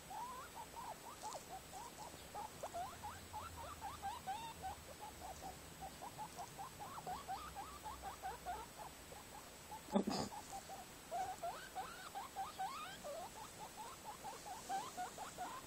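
Guinea pig making a steady run of short, quick squeaks, several a second. A single sharp knock sounds about ten seconds in.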